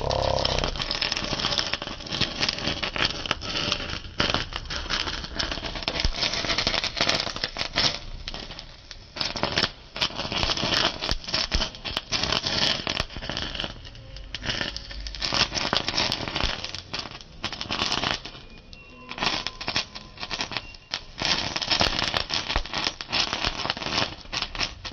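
Sparkler burning with a dense, continuous crackle and fizz as it lights a firework snake tablet, the crackling swelling and easing in loudness every few seconds.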